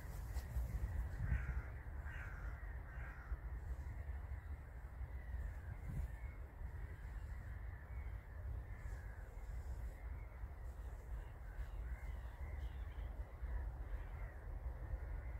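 Wind rumbling on the microphone in an open field, with birds calling, three clear calls about one to three seconds in and fainter ones later.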